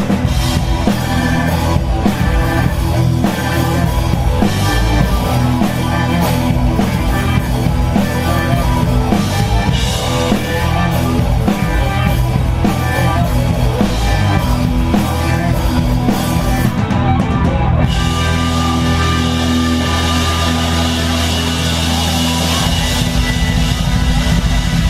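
Blues-rock band playing live: drum kit, electric guitar, bass and keyboards.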